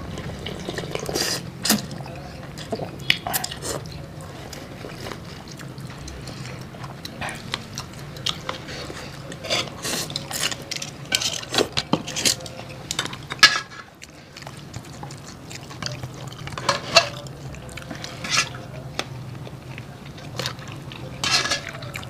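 Eating sounds of curry noodle soup and fried chicken: repeated short clinks and scrapes of a fork, spoon and tongs against bowls and a metal wok, with brief slurps of broth and noodles and chewing, over a steady low hum.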